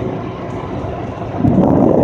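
Road and engine noise of a moving vehicle heard from inside the cab, with wind blowing in through an open window; it grows louder about one and a half seconds in.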